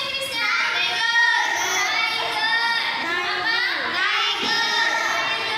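Young children's high voices singing together.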